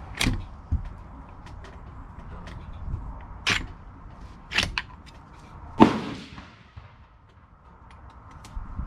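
Rifle shots at a shooting range: four sharp reports, the loudest about six seconds in, ringing on for about a second after it.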